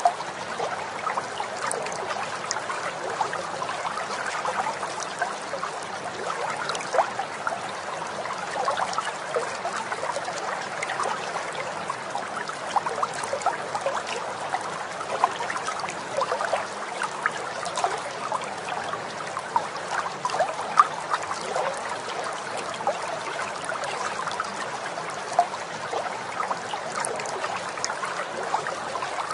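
Running water trickling steadily, like a small stream, with many tiny splashes scattered throughout.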